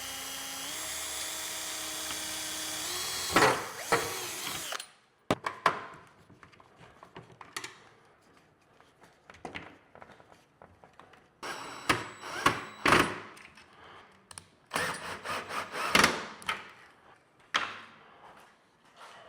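A power tool's small electric motor whirring steadily for about five seconds, its pitch stepping up a few times before it cuts off. Then scattered knocks and clatter as parts are handled, loudest in short clusters about twelve and fifteen seconds in.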